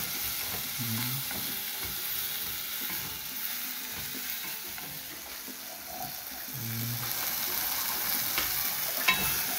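Diced vegetables sizzling in a non-stick pot over a gas flame as a wooden spoon stirs them, with a steady frying hiss. A couple of sharp clicks near the end, the spoon knocking the pot.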